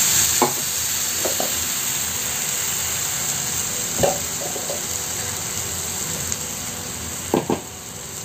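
Sugar and water heating in a nonstick pan, a steady sizzling hiss as the sugar dissolves and the syrup starts to bubble at the edges, with a few short taps over it.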